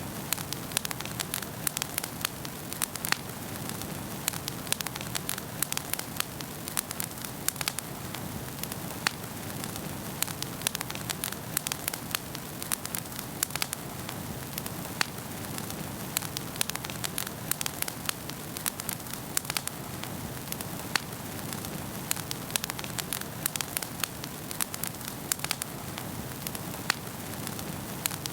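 Wood fire burning in a fireplace, with a steady low rumble and many sharp, irregular crackles and pops.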